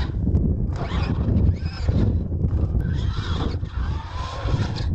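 R/C monster truck's motors revving hard, with a whining pitch that rises and falls between bursts as the truck is launched and flipped through the air, plus a few sharp knocks. Under it, a constant low rumble of wind on the microphone.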